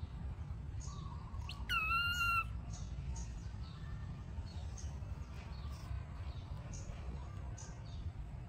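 A young macaque gives a single clear, high call about two seconds in, under a second long, sliding down and then holding its pitch, over a steady low rumble, with faint short high chirps scattered through.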